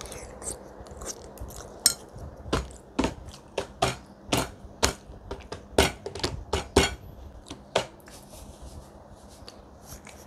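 A mouthful of beef mac and cheese being chewed close to a clip-on microphone: a run of sharp mouth smacks and clicks, about one or two a second, dying away after about eight seconds.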